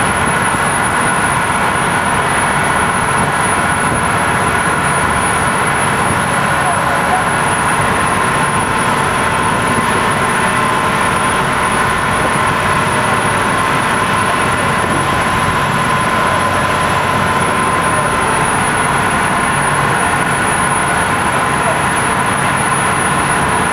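Boat's engine running in a steady, loud drone with a constant whine, heard from on board a fishing trawler at sea; its pitch sags slightly twice.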